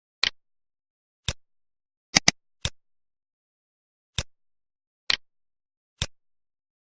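Computer mouse clicking: about eight short, sharp clicks at irregular intervals, two of them quick double-clicks, with silence between.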